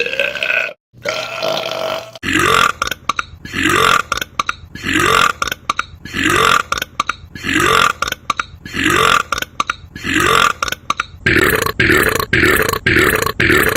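A string of loud belches, the same rising belch repeated at an even beat a little more than once a second, quickening to about twice a second near the end.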